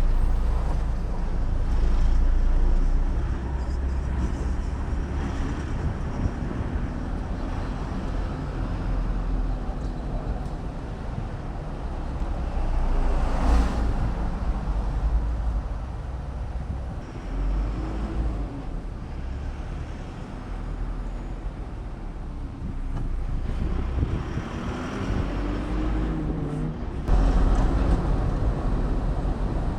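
Road and engine noise of a moving car: a steady low rumble, with a brief louder bump about halfway and engine pitch rising and falling briefly a few times in the second half.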